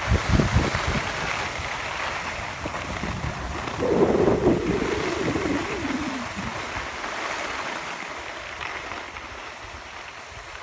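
Skis sliding over packed snow with a steady hiss, and wind buffeting the microphone in the first second or so. About four seconds in comes a louder grating scrape that drops in pitch over a couple of seconds, like ski edges skidding on the snow.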